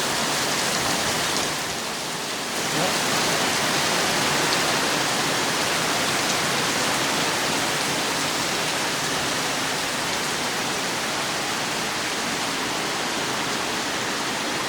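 Heavy rain pouring down steadily as a dense, even hiss. It eases slightly for a moment about two seconds in.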